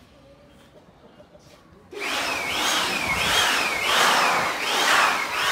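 Rhythmic sawing, about one stroke every 0.7 s, each stroke with a falling squeal over a rasping noise. It starts abruptly about two seconds in, after a quiet stretch.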